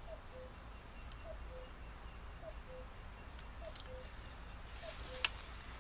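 Outdoor ambience: an insect chirping in a steady fast pulse at a high pitch, and a bird repeating a short two-note falling call about every second and a quarter. A faint click, then a sharper click about five seconds in, as the small carved wooden containers are handled.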